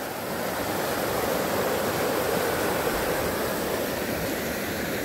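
Shallow mountain river rushing over rocks in small rapids: a steady hiss of running water.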